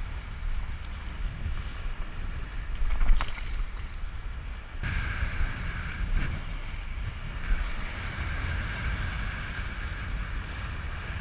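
Wind buffeting the microphone over the wash of waves and water. There is one sharp click about three seconds in, and the sound changes abruptly a little before halfway.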